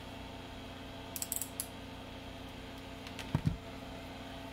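Steady hum of a bench exhaust fan, with a quick run of four or five small sharp clicks about a second in and a short soft knock a little past three seconds.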